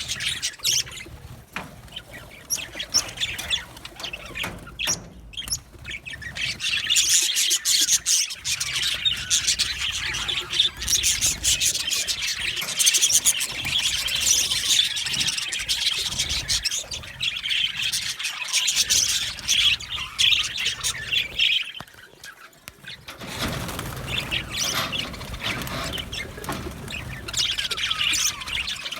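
Flock of budgerigars chirping and chattering, many birds at once, with a brief lull about three quarters of the way through.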